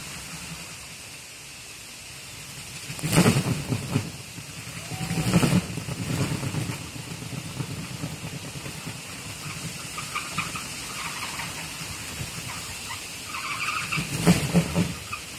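A kolecer, a Sundanese wooden wind propeller, whirring in strong gusty wind, with wind gusts buffeting the microphone about three, five and fourteen seconds in.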